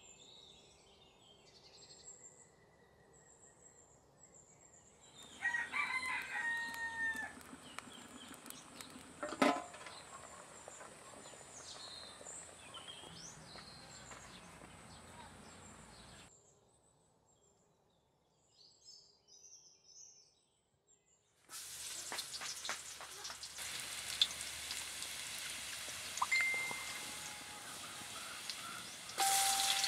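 A rooster crows, a long call with falling ends about five seconds in. Later, oil in a wok hisses with scattered crackles and jumps into a louder sizzle near the end.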